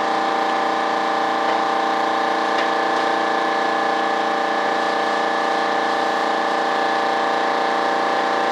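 Electric drill spinning a cone-shaped buffing wheel, running free off the work at a steady speed with an even, unchanging whine.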